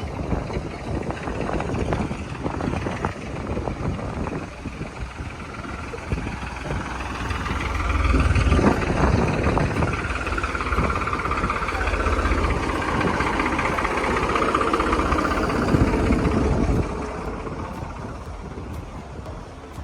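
A fishing boat's engine running, a steady rumble that grows louder about eight seconds in and drops back near the end.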